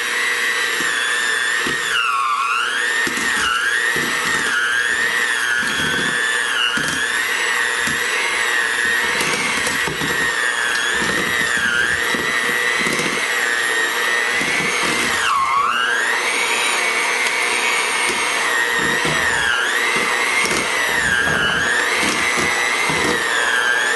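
Handheld electric mixer running with its beaters shredding cooked pork shoulder in a stainless steel bowl. The motor's whine keeps dipping in pitch as the beaters bog down in the meat, most deeply about two seconds in and again about fifteen seconds in, over irregular knocks of the beaters in the bowl.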